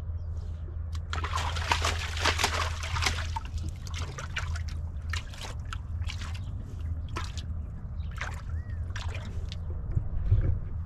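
A horse splashing and sloshing water with its muzzle in a plastic water barrel: a dense run of splashing about a second in, then scattered single splashes, over a steady low hum.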